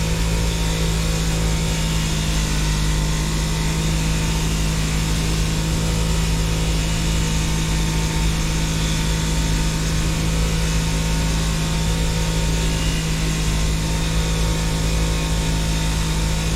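Wire wheel running steadily, its motor holding a constant hum over an even hiss as a rusty knife blade is brushed clean.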